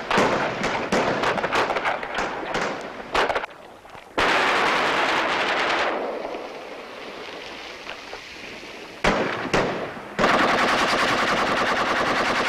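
Bursts of rapid gunfire, many sharp cracks close together, most dense in the first few seconds and again briefly near the end. Between them there is a stretch of loud steady hissing noise.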